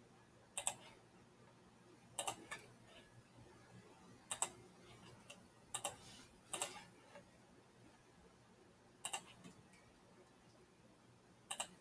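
Faint computer mouse clicks, often in quick pairs, every one to three seconds.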